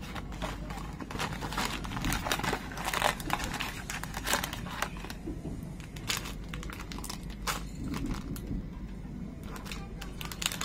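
Plastic snack wrappers and a paper bag crinkling and rustling as snack packets are taken out and set down on a tray table. The crackling is irregular and busiest in the first half, over a steady low hum.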